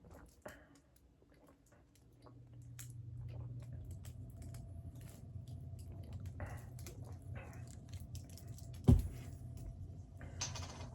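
Scattered small clicks and handling noises over a steady low hum that starts about two seconds in, with one sharp thump about nine seconds in.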